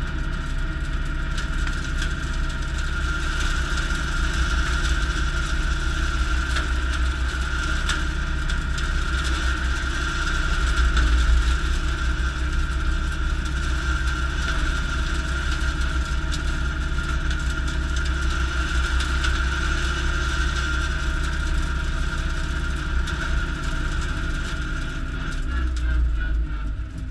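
Valtra A95 tractor's diesel engine running steadily, driving the Woods BB84X single-spindle rotary cutter through its PTO while mowing brush, with a steady high whine over the engine's low note. The whine wavers briefly near the end.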